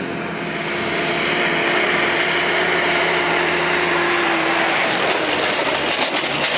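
A vehicle engine running steadily under a constant rushing noise; its steady hum fades out about four and a half seconds in.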